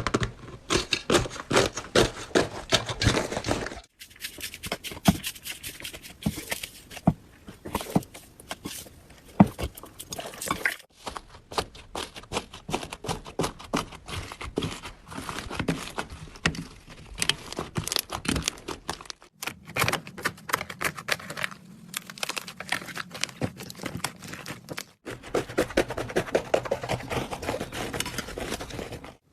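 Slime being squished, with dense crackling and popping, in five short clips that cut abruptly one to the next.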